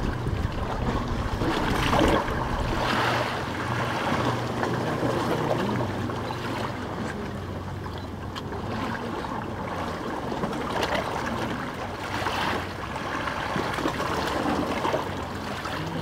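Small sea waves lapping and washing against a stone beach, swelling and easing every few seconds.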